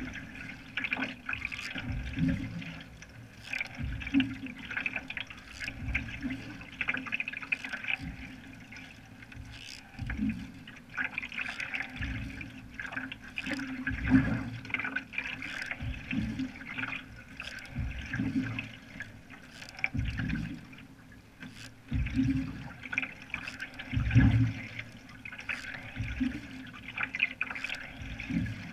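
Single-bladed canoe paddle pulling through lake water in a steady rhythm, a low swish and splash about every two seconds, over continuous water trickling and gurgling along the canoe.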